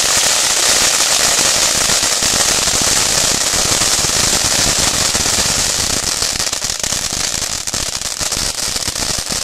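Ground firework fountains spraying sparks: a loud, steady hiss laced with fast crackling, easing off a little in the last few seconds.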